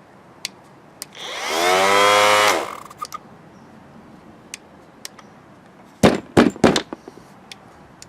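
DeWalt cordless orbital sander motor spinning up with a rising whine, running about a second, then winding down: the faulty sander that quits as soon as its pad touches something. A few light clicks come before and after, and a cluster of loud sharp knocks follows near the end.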